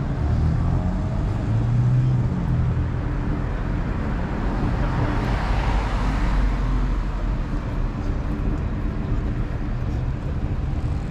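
Road traffic at a city intersection: cars passing close by with a steady engine rumble and tyre noise. One car sweeps past about six seconds in, its hiss rising and fading.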